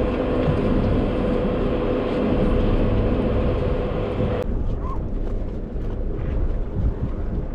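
Charter fishing boat's engine running, a steady rumble with a constant hum. About four and a half seconds in, the sound drops abruptly to a quieter low rumble.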